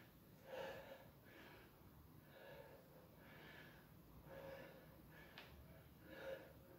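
A man breathing faintly and rhythmically, about one breath a second, while doing standing trunk twists.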